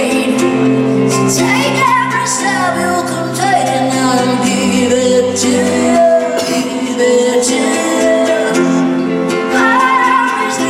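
Live band music with a woman singing lead, her sung lines bending in pitch over held chords and steady bass notes.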